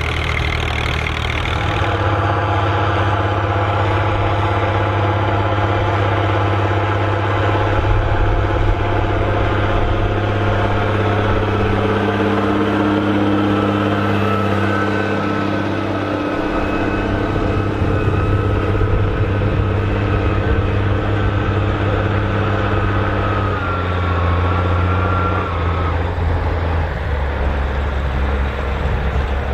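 Massey Ferguson tractor diesel engines running steadily while ploughing. The engine note shifts about halfway through and again near the end.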